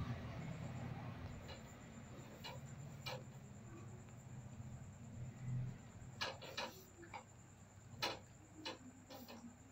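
Faint, irregular clicks and ticks, more frequent in the second half, over a low steady background hum.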